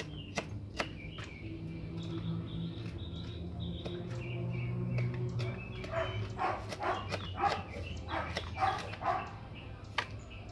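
Kitchen knife chopping parsley on a plastic plate: irregular sharp taps. A dog barks several times in the second half, and birds chirp faintly early on.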